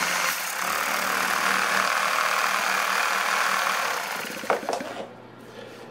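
HO-scale live steam tank locomotive running on compressed air: a steady hiss of air driving and exhausting through its cylinders, falling away about five seconds in.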